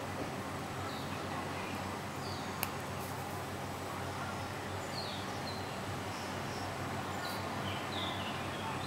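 One sharp click from a chronograph pusher on an Omega Speedmaster Rattrapante split-seconds chronograph, about two and a half seconds in, over a steady hiss and low hum. Faint short high chirps come and go.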